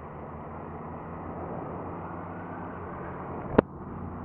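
Honda VFR800Fi's V4 engine running steadily on the move, with wind and road noise. A single sharp click stands out about three and a half seconds in.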